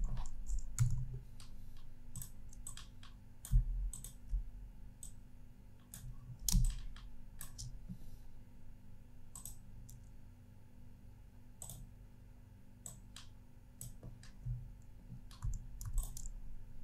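Irregular clicks from a computer mouse and keyboard while drawing on screen, a few louder than the rest.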